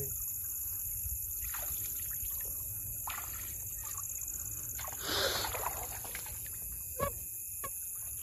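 Night insects chirring steadily at a high pitch over a low outdoor rumble, with a short splash of water about five seconds in and a single sharp knock near seven seconds.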